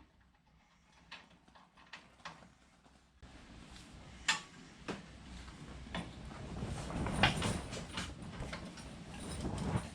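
Hand tools and bolts clinking and knocking in scattered single strikes while a wrench is fitted to a brake anchor plate bolt. A low steady rumble comes in about three seconds in.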